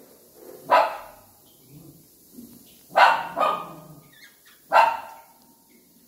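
A dog barking three times in short, sharp barks: about a second in, around three seconds, and near five seconds.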